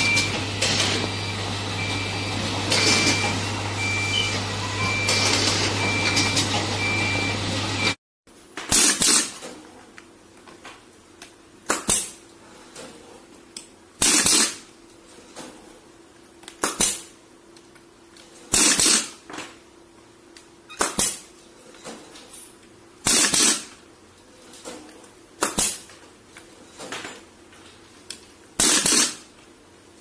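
Automated transformer-bobbin machinery running with a steady hum and a repeating high-pitched tone. About eight seconds in it gives way to sharp metallic clacks every two seconds or so, with smaller clicks between, from a bench-top transformer bobbin pin-cutting machine as bobbins are fed into it.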